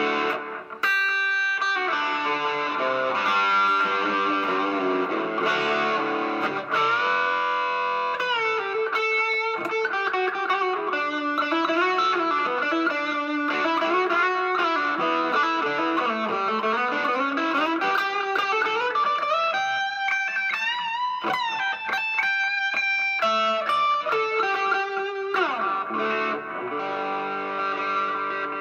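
Electric guitar, a Gibson Les Paul Studio Plus Top, played through a small Vox valve amp with a compressor pedal switched on: a continuous lead line of sustained notes with string bends.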